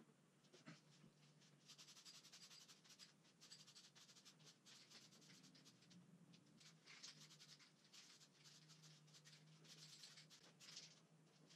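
Faint hiss of an aerosol spray-paint can, sprayed in short uneven bursts.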